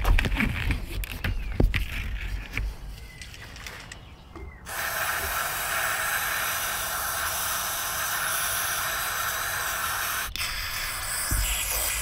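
A few knocks and clicks as the tractor's 7-pin trailer connector is handled. Then a steady aerosol hiss of electrical contact cleaner being sprayed into the connector starts abruptly about five seconds in and runs for several seconds, with a brief break near the end. The connector is being cleaned to cure a fault that keeps the implement's wings from unfolding.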